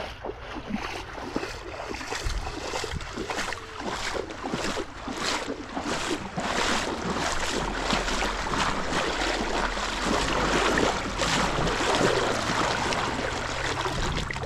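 Someone wading through a creek: legs sloshing and splashing through the water in a steady stride, about two splashes a second, over the running stream.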